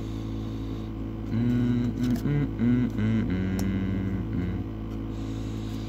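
Steady low electrical hum, with a few seconds of wordless humming by a voice in the middle.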